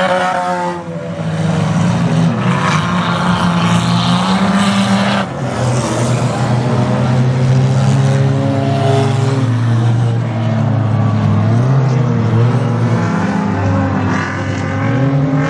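Several enduro race cars' engines running hard on a dirt track, revving up and down as the cars race and pass one another.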